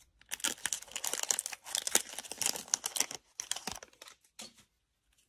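Clear plastic wrapper of a Panini Prizm cello pack crinkling as the pack is opened and the cards are tipped out. It crackles rapidly for about three seconds, then gives a few light ticks and stops.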